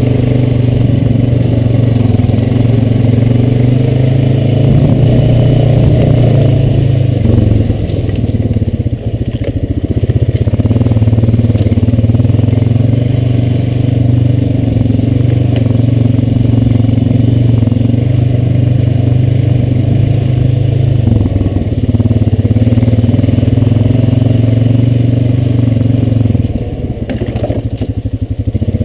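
Honda Rancher 420AT ATV's single-cylinder four-stroke engine running under way, pulling steadily, easing off a couple of times and dropping to a lower, quieter note near the end.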